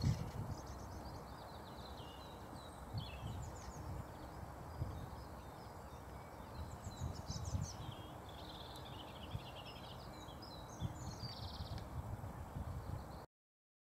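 Outdoor ambience: small songbirds chirping and singing in short phrases over a low, gusty rumble. The sound cuts off abruptly near the end.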